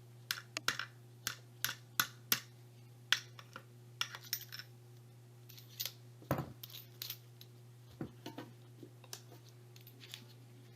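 Light metallic clicks and clinks of a still-hot soldering iron tip being worked off the iron and swapped for a smaller tip, in irregular taps that thin out in the second half.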